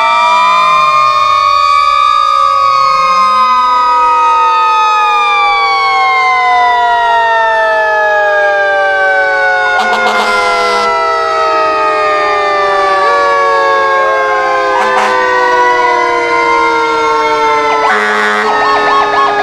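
Several fire engine sirens wailing together as the trucks pass, their pitches slowly rising and falling over one another. Short blasts cut through about halfway, again near 15 seconds and near the end.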